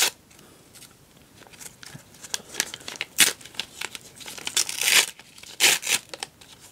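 Brown paper envelope being torn open and handled by hand: a run of short tearing and crinkling noises, starting after about a second of quiet.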